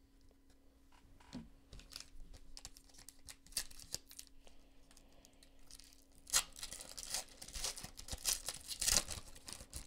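Foil wrappers of trading-card packs being torn open and crumpled by hand: quiet rustling and clicks at first, then louder crinkling and tearing from about six seconds in. A faint steady hum runs underneath.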